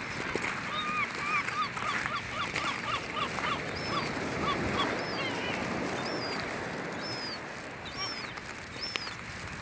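Gulls calling: a rapid run of short, repeated calls, about two or three a second, through the first half, then several higher, thin, drawn-out calls spaced a second or so apart, over steady background noise.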